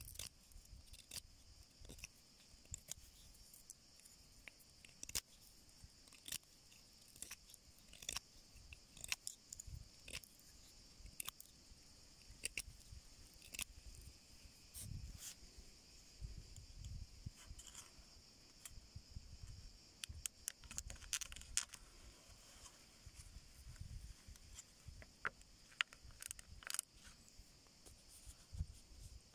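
Faint, irregular scraping and clicking of an Extrema Ratio NK3 neck knife carving a thin wooden stick, with occasional soft knocks from handling, over a steady high hiss.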